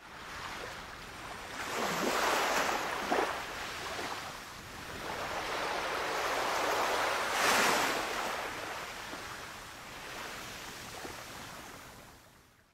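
Sea waves surging and breaking on a shore, with swells about two seconds in and again about seven seconds in, fading out near the end.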